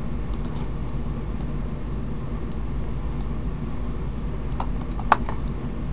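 Steady low background hum, with a few faint computer mouse clicks scattered through it and one sharper click about five seconds in.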